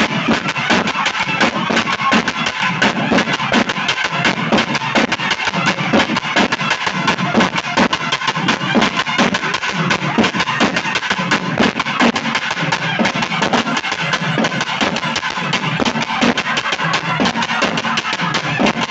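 Loud temple-festival music led by fast, dense drumming, the strokes coming in a quick, steady stream without a break.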